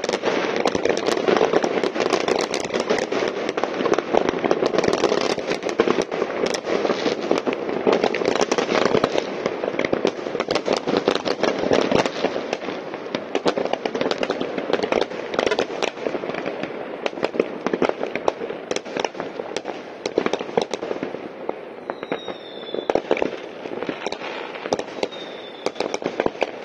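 Many fireworks and firecrackers going off at once across a city: a dense, unbroken crackle of bangs and pops. It thins out somewhat in the last several seconds, where a couple of short falling whistles are heard.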